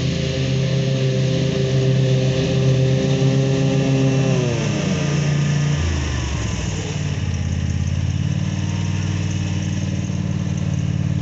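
Engine of a Bad Boy Revolt 36-inch mower running while it cuts grass. Its pitch falls about four to six seconds in, then it settles into a lower, steady hum.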